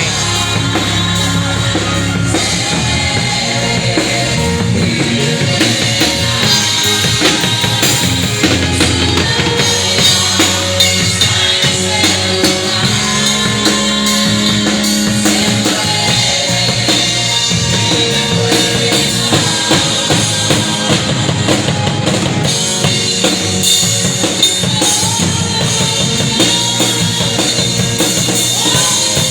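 Live worship band music driven by a drum kit: kick drum, snare and rimshots keeping a steady beat under sustained instruments.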